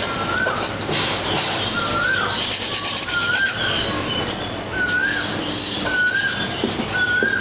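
Graphite pencil shading on paper in clusters of quick back-and-forth rasping strokes. A bird repeats a short rising chirp about once a second.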